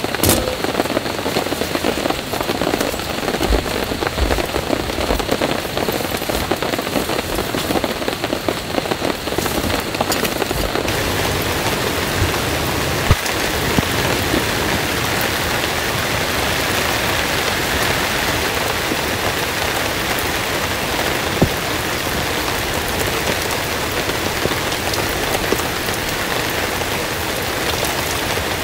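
Heavy, steady rain pouring down, a dense hiss that turns brighter and fuller about a third of the way through. Two single sharp knocks stand out, one near the middle and one later.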